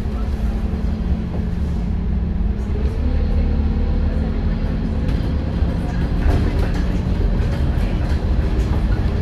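Scania N230UD double-decker bus's diesel engine running under a low rumble, its note climbing about two and a half seconds in as the bus pulls harder.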